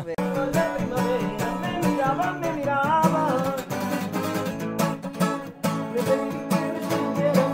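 Music led by a strummed acoustic guitar, with a wavering melody line above it.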